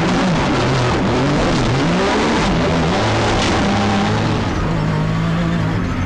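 Rally vehicle's engine driven hard off-road, revs climbing and dropping several times in the first few seconds, then holding steadier, over a constant rush of noise.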